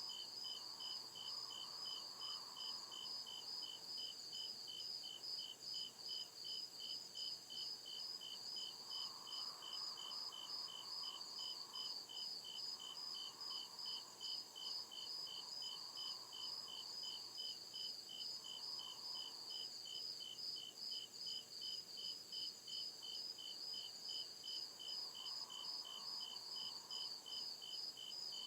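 Crickets chirping in a steady, evenly pulsed chorus, with at least two insects at different pitches, one higher than the other.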